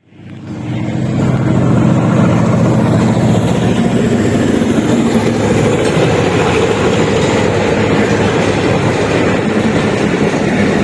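A train running past on the track, a steady rumble of wheels and carriages that fades in over the first second.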